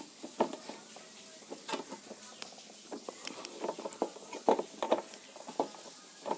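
Scattered light clicks and taps of pliers working on a scooter's choke cable, cutting through it.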